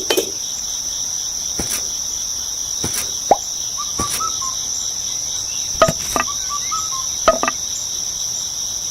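Steady high-pitched chirring of crickets, with about a dozen sharp taps or clicks scattered through it, some in quick pairs.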